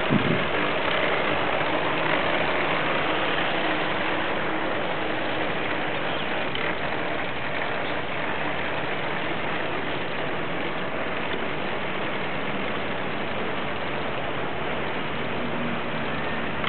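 Radio-controlled speedboat running fast across the water: a steady rushing hiss of its motor and spray, with a faint thin whine.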